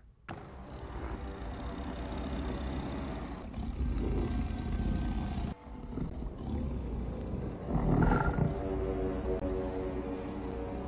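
Film bear growling and roaring, a sound effect made partly from tiger growls. It runs continuously, with a brief break partway through and a louder roar about eight seconds in.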